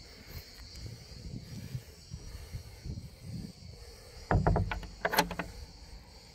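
An old wooden door being tried by hand, rattling in its frame against its brass sliding bolt: a quick cluster of knocks and metallic clicks lasting about a second, starting about four seconds in.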